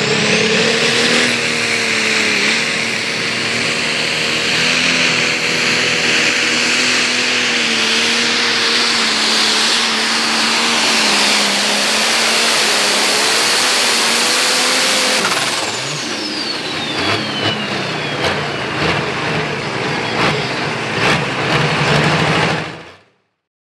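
Turbocharged diesel engine of a Case IH pulling tractor running flat out under load as it drags the sled, with a steady high whine over the engine note. About fifteen seconds in it comes off throttle: the whine falls away in pitch and the engine runs lower, with scattered sharp clicks.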